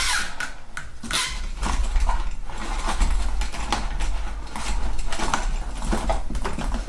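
Irregular clicks, knocks and rubbing as an RC plane's wheeled landing gear is handled and fitted against its upside-down foam fuselage, over a low rumble.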